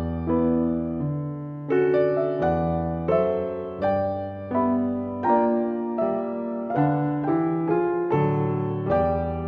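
Background music: a piano playing a gentle melody over chords, each note struck and then fading.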